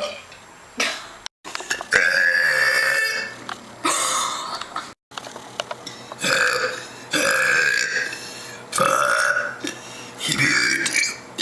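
A woman burping loudly over and over, about six belches in a row, the longest lasting around a second, with two brief dropouts in the sound between them.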